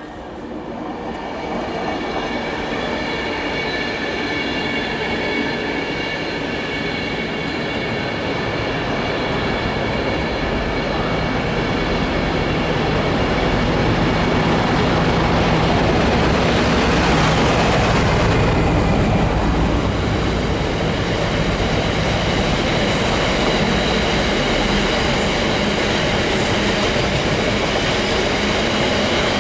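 A Class 60 diesel-electric freight locomotive approaching and passing at speed, growing steadily louder to a peak as it goes by, with a high whine present during the approach. It is followed by a long rake of open box wagons rolling past with a steady wheel-on-rail rumble.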